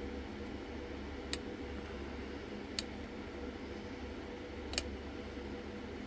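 Three sharp little metal clicks, a second and a half to two seconds apart with the last the loudest, from a pick working the pins of a dimple lock cylinder, over a steady low hum and hiss.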